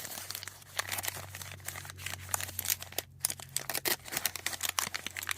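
Paper wrapper of a trading-card pack crinkling and tearing as it is opened by hand, a dense run of irregular crackles.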